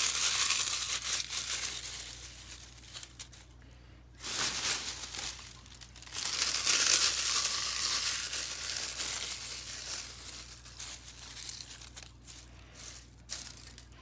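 Dry leaf litter being crumbled by hand, a crackly crinkling in bouts: loudest near the start and again from about six seconds in, then fainter and patchier towards the end.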